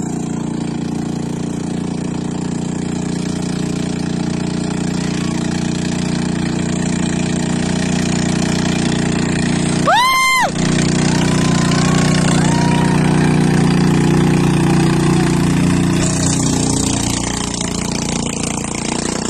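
Boat engine running steadily. About ten seconds in there is a brief shrill cry, followed by faint distant shouts.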